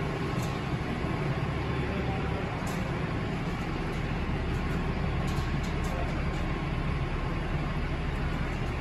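Steady low machine hum and rumble of heavy equipment running, with a few faint clicks about five to six seconds in.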